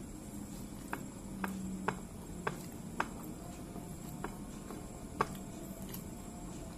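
Close-up eating sounds of a person chewing rice eaten by hand, with a series of sharp smacking clicks, about seven over five seconds, irregularly spaced.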